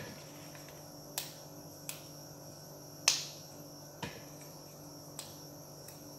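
Fresh flat green beans snapped by hand, about six sharp crisp snaps roughly a second apart, the loudest about three seconds in, over a faint steady hum.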